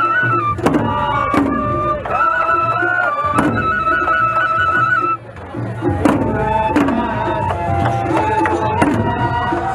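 Japanese festival hayashi: several shinobue bamboo flutes play a high, ornamented melody over irregular strokes on the float's large taiko drums.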